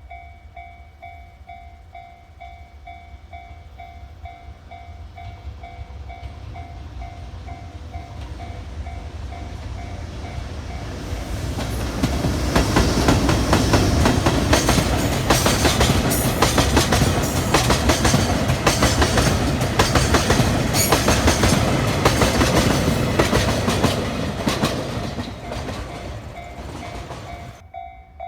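A freight train passing a railway level crossing. The wheels' clatter and rumble build over about ten seconds, stay loud for about twelve, then fade, while the crossing's warning bell rings in a steady repeating pattern. The sound cuts off abruptly near the end.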